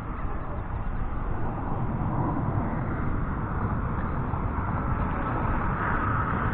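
Steady low rumbling noise with a hiss above it, growing slightly louder after the first second.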